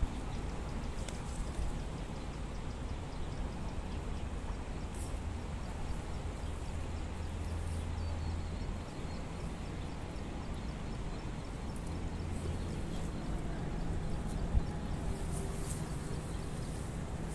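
Steady outdoor background noise: a low rumble under an even hiss, with one sharp knock about fourteen and a half seconds in.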